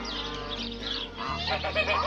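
Geese honking several times in the second half, over a steady high chirping of small birds.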